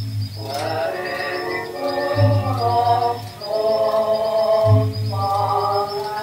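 Music: a chant-like melody in long held notes that slide from one pitch to the next, over a low beat that comes about every two and a half seconds.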